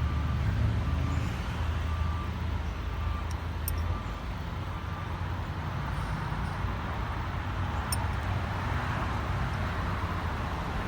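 Truck engine running, a steady low rumble that is strongest for the first four seconds and then eases, with traffic noise around it.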